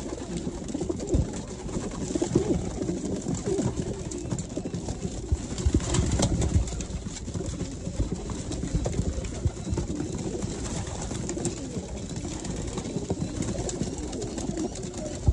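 A flock of racing pigeons cooing continuously while they peck grain from a hand, with many short sharp taps scattered through the cooing.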